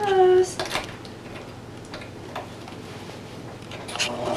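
Small clicks and taps of fabric and pins being handled and set in place at a home sewing machine before stitching, with a short falling vocal sound near the start.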